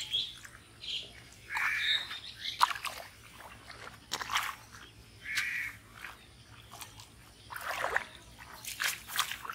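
Bare feet sloshing and splashing through shallow muddy water, in irregular steps that bunch together near the end. Two short animal calls, about two seconds and five seconds in.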